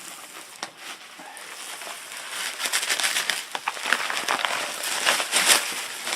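Plastic packaging crinkling and crackling as it is handled and pulled apart, with a quick run of small clicks and crackles that grows busier after about two seconds.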